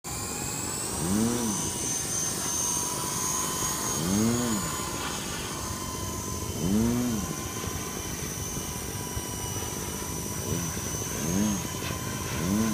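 Small toy RC helicopter's electric motors and rotors whirring with a steady high whine. A lower hum swells up and down in pitch every few seconds, more often near the end.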